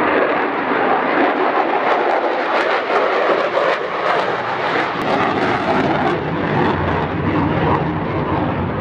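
F-35B fighter jet's single F135 turbofan engine, loud and steady as the jet flies past, cutting in suddenly at the start. A deeper rumble builds in about two-thirds of the way through.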